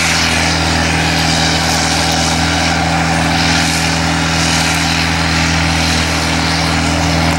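A vehicle engine running steadily at constant speed, with a broad hiss over its low hum.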